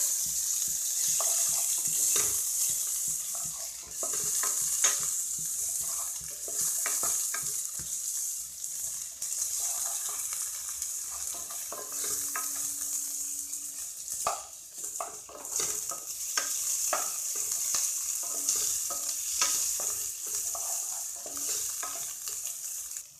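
Chopped onions frying in hot oil in a pan, sizzling steadily, with a spatula stirring and scraping against the pan.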